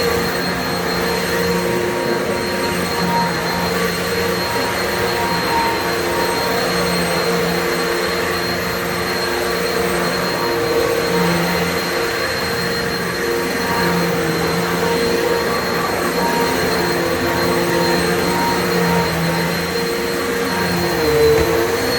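Upright vacuum cleaner running steadily on a rug: a constant high motor whine over rushing airflow noise.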